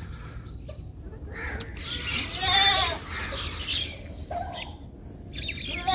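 Chickens calling: one loud, drawn-out squawk about two seconds in and a shorter call a little after four seconds.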